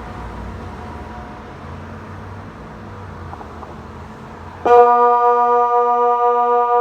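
Kockum Sonics DELTA 6 electronic siren sounding the Swiss water alarm. A gap between blasts, with background hiss and a faint distant siren tone fading out, is followed about three-quarters of the way through by the siren switching on abruptly into a loud, steady low tone, the start of one of the alarm's 20-second continuous blasts.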